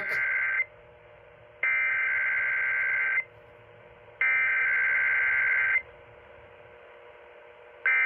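Emergency Alert System SAME header data bursts, the harsh two-tone warble of digital alert code, coming from a KDKA AM 1020 broadcast through an AM radio speaker. One burst ends just after the start and two more follow, each about a second and a half long with a second of gap between them. A short burst comes near the end. This is the coded header of a Required Weekly Test, which the receiver decodes to set off its alert.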